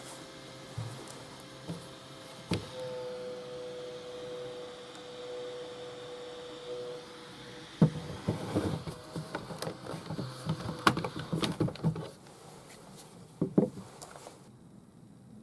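Makita DC18RF battery charger running with the steady hum of its cooling fan, then several seconds of clicks and knocks from the charger and battery being handled.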